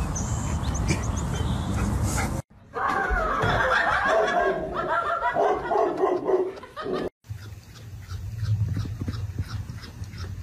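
A dog vocalizing in a drawn-out run of calls that rise and fall in pitch, set between two abrupt cuts. Before the first cut there is a steady rumbling noise, and after the second a low hum with faint even ticks about three times a second.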